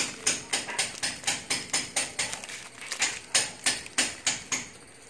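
A steady run of sharp, evenly spaced knocks, about three or four a second, like quick hammering, with a short break near the end.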